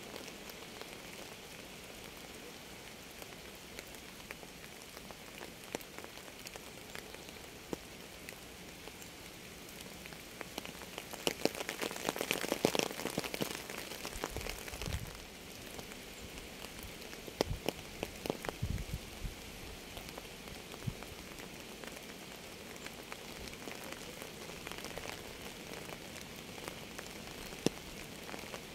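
Rain falling on a surface: a steady patter of drops, with a louder, denser spell of close drops about eleven to fourteen seconds in and a few loud single drops around eighteen seconds.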